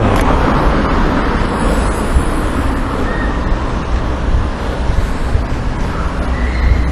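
Steady road traffic noise: vehicles going by with a continuous low rumble.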